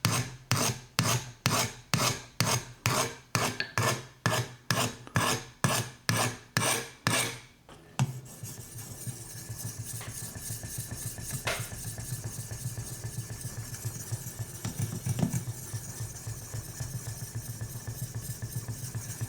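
Knife blade stroked freehand across a coarse TSProf Alpha diamond sharpening stone. Rhythmic rasping strokes come a little over two a second for about seven seconds, then give way to a quieter, continuous fast scraping.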